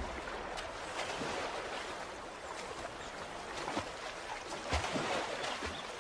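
Running river water: a steady rush of flowing water, with a few faint ticks and splashes in it.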